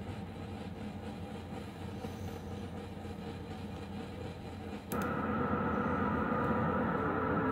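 SOMA Rumble of Ancient Times synthesizer playing a steady, low, rumbling electronic drone. About five seconds in it suddenly gets louder and brighter as higher tones come in while its knobs are being turned.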